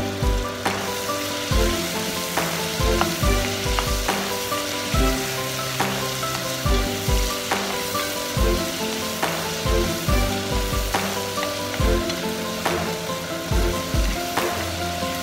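Diced carrots, tomatoes and peppers sizzling as they sauté in a nonstick pot, stirred with a plastic spatula, over background music.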